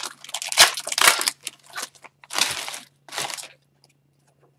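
Wrapper of an Upper Deck hockey card pack crinkling in quick bursts as it is torn open and the cards are slid out, stopping about three and a half seconds in.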